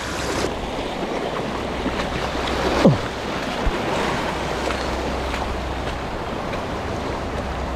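Steady rush of wind and waves around a boat at sea, with a low steady hum underneath. About three seconds in there is a brief falling tone.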